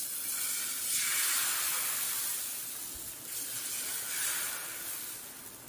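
Egg-and-maida batter sizzling as it is poured onto a hot, lightly oiled dosa tawa. The hiss starts suddenly and eases off a little toward the end.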